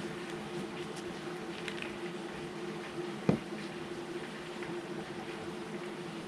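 Steady indoor background noise with a constant low hum, faint scattered ticks, and one sharp knock a little over three seconds in.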